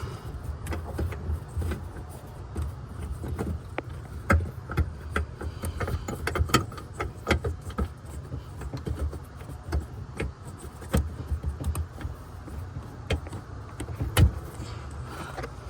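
Irregular small clicks and knocks of a bulb being fumbled and twisted into the back of a headlight housing, over a low handling rumble.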